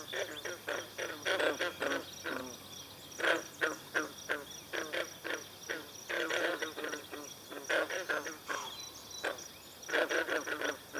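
Green frogs calling in chorus: short calls overlapping in clusters, with brief gaps between the clusters. A steady, evenly pulsed high insect trill runs underneath.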